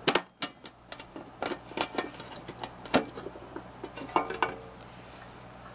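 Metal catches and cover of an old instrument carrying case being unlatched and taken off: a series of sharp clicks and knocks, with a brief rattling clatter about four seconds in.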